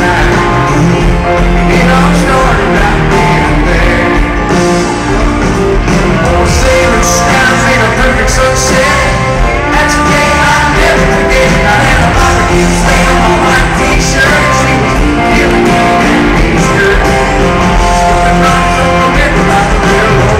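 Loud live band music with a lead singer, played on stage at a rock concert.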